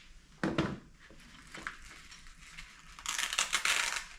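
Crinkling, crackling of something being handled, loudest for about a second near the end, with a short rustle about half a second in.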